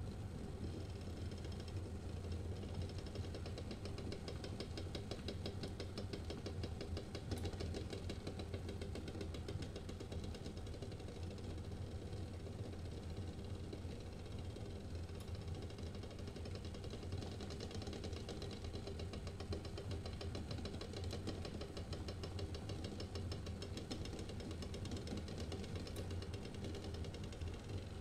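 Eggs boiling in a stainless steel saucepan: water bubbling steadily with a fast, dense rattle as the eggs knock against the pot, over a low steady hum.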